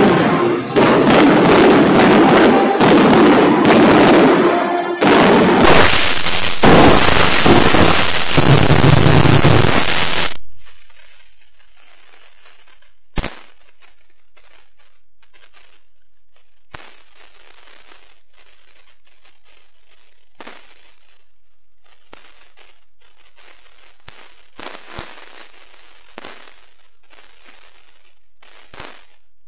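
Fireworks display: a dense, very loud barrage of overlapping bursts and bangs for about ten seconds, which cuts off abruptly. After it come only faint, scattered crackles and pops under a steady high-pitched whine.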